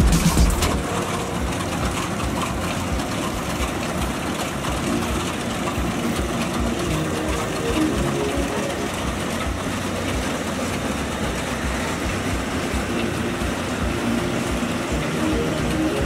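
Yanmar YH700 crawler rice combine harvester running steadily as it works through the paddy: the diesel engine and harvesting machinery make a continuous mechanical din.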